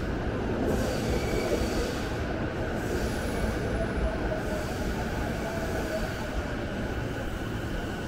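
Train running on rails: a steady rumble with a faint high squeal of the wheels over it.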